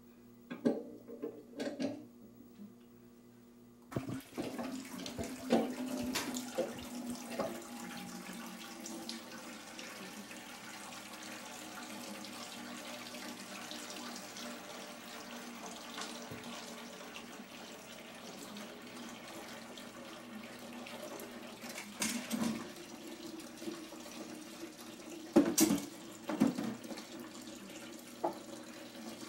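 Kitchen faucet running steadily into a stainless-steel sink while dishes are washed. The water comes on about four seconds in. Dishes and pans clatter now and then, loudest near the end.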